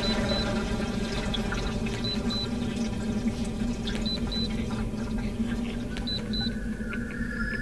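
Electronic noise music: a dense low drone under a stack of steady buzzing tones, with a pair of short high beeps about every two seconds. A new held high tone comes in near the end.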